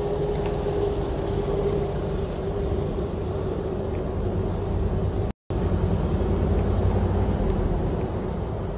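A vehicle running: a steady engine drone and rumble, with a short break about five seconds in.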